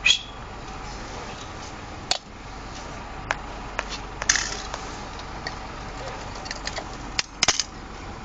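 Scattered sharp clicks and light knocks at irregular intervals, about a dozen, over a steady faint hum. The loudest come at the very start, about four seconds in, and near the end.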